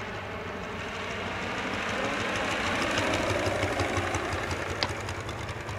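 Model aircraft engine buzzing as the plane flies past, growing louder toward the middle and then fading a little.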